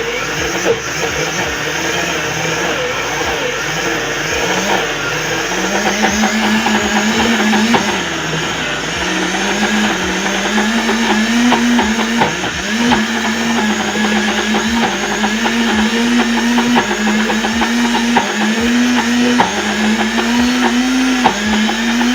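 SilverCrest blender motor running at slow speed, grinding roasted peanuts without oil into a thick, clumping paste. Its hum firms up a few seconds in and then keeps dipping and recovering in pitch about every second or so, with a rattle of peanut pieces against the jar.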